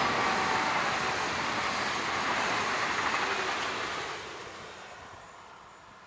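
SBB double-deck electric train running past on the rails, a steady rush of wheel and rail noise that fades away from about four seconds in as the train recedes.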